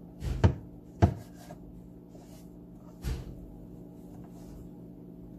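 Kitchen knife cutting the crusts off slices of white bread on a plastic cutting board: sharp knocks as the blade strikes the board, two close together about half a second and a second in and another about three seconds in.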